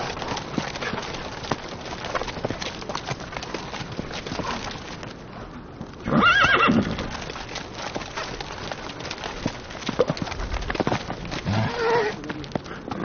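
A horse working on a lunge line: its hooves strike the ground in a steady run of knocks, and it gives one loud neigh about six seconds in as it rears.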